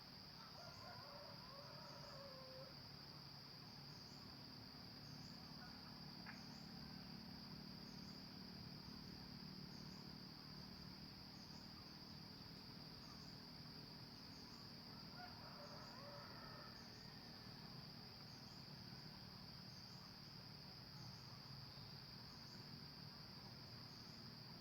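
Steady high-pitched insect trill from crickets, with short chirps about once a second. Two faint junglefowl crows sound over it, one about a second in and one about 15 seconds in.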